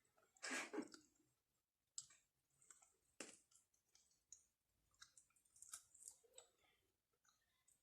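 Faint, scattered mouth clicks and smacks of people chewing hot wings, with a brief louder rush of noise about half a second in.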